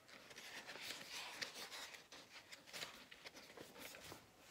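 Faint rustling and light handling of a picture book's paper pages as they are turned.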